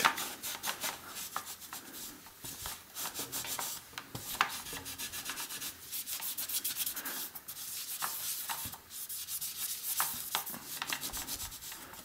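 Cloth rubbing and scrubbing inside a bicycle's bottom bracket shell, wiping out degreaser and dirt. It makes a scratchy wiping sound with small ticks of the hand and cloth against the frame, one sharper tick about four seconds in.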